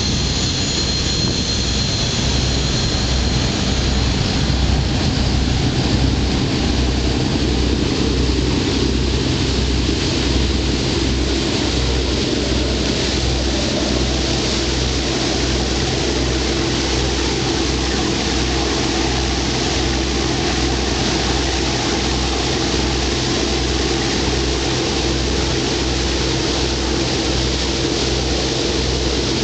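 Twin Cummins VT-1710 V-12 twin-turbo marine diesels running steadily at cruising speed, about 1200 rpm, with a low even throbbing beat, heard out on deck and at the stern by the exhaust pipes. The rush of the churning propeller wake mixes in, and a high whine at the start fades away.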